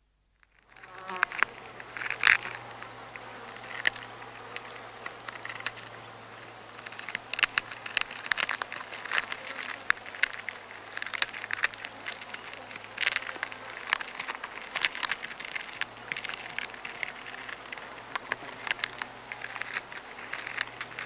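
Black wood ants feeding on the remains of a bun in a paper bag: a dense, irregular patter of tiny clicks, ticks and paper rustles, starting about half a second in.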